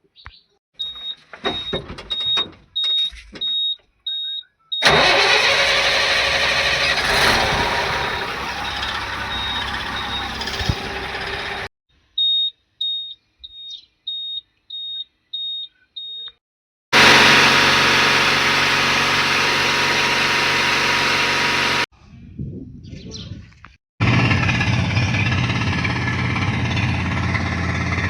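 Diesel engine of a Tata Signa 2830 dump truck running loudly, heard in several cut-together stretches. Between them a high electronic beep repeats about twice a second, along with short knocks.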